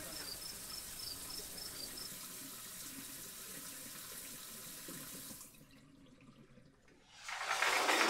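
Shower water spraying with a steady hiss that drops away about five and a half seconds in, then comes back as a much louder rush of water near the end.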